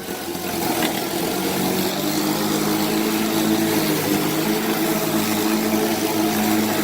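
Kobalt 80V battery-powered lawn mower running while cutting grass: a steady electric motor and blade hum with a hiss of cut grass, growing a little louder about half a second in.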